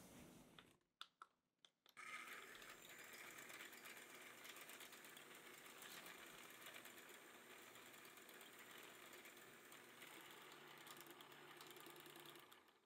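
Electric hand mixer running with its wire beaters whipping cream in a glass bowl: a faint, steady whir that starts about two seconds in after a few clicks and fades out near the end.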